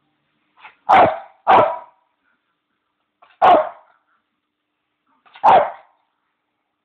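Bichon dog barking at its owners for its bone: two barks in quick succession about a second in, then single barks about two and four seconds later, each short and loud.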